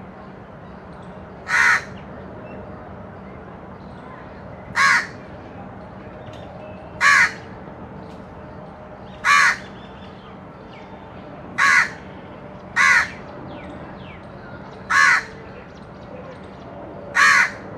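A crow cawing: eight single caws, spaced about two seconds apart, over a faint steady hum.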